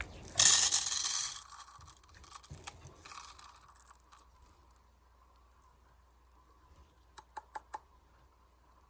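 Loose black powder from a firework shell poured into a cup, a hissing patter of grains for about two seconds, then a second shorter pour. Near the end come four quick light clicks.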